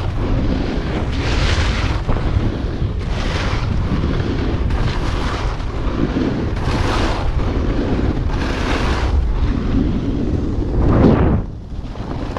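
Wind buffeting the camera's microphones on a fast snowboard run, with the board's edge scraping over groomed snow in a swoosh at each turn, about every one and a half to two seconds. The sound drops sharply near the end as the board slows.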